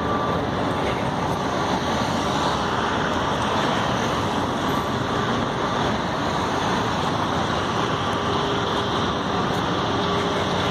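City street traffic noise: a steady wash of passing vehicles.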